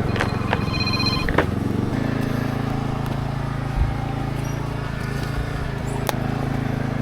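A phone ringtone sounds for about a second near the start, over the steady running of a Kubota SPJ400 rice transplanter's engine.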